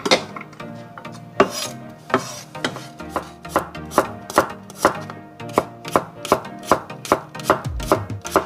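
Chef's knife slicing garlic cloves on a wooden cutting board, each cut ending in a sharp knock of the blade on the board. A few spaced cuts at first, then a steady run of about two to three cuts a second.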